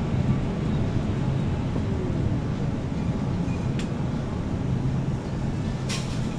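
Mobility scooter's electric drive humming steadily as it rolls along a hard store floor, with two short clicks about two seconds apart in the second half.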